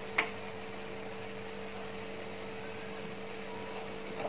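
Steady low electrical hum with a faint hiss, broken by one sharp click about a fifth of a second in.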